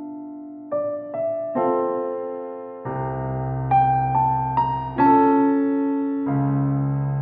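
Background piano music: a slow keyboard melody, a new note or chord struck about every half second to second, with deeper bass notes joining partway through.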